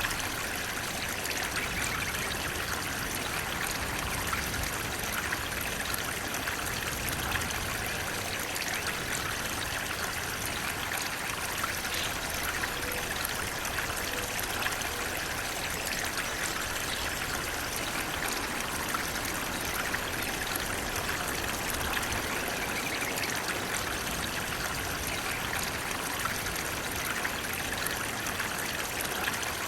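Flowing water, a steady unbroken rush and trickle with a bright, splashy hiss.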